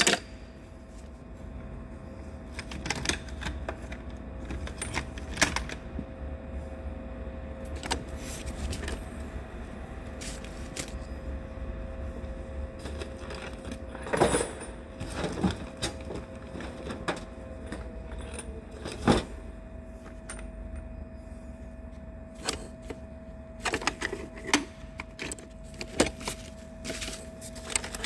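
Metal tools and parts clinking and knocking at irregular intervals, with a few sharper knocks, over a steady low hum and drone.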